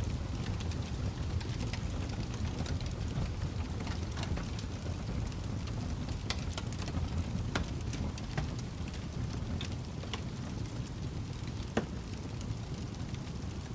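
Wood fire crackling in a fireplace: irregular sharp pops and snaps, a few louder ones scattered through, over a steady low rumble of the burning fire.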